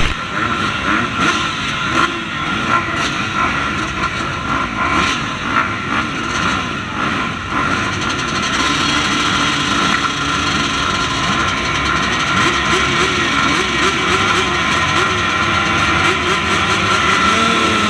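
Motocross bikes revving on the starting line, the nearest a KTM 125 two-stroke. Revved in short blips at first, then held steady at high revs from about halfway through, as the riders wait for the gate to drop.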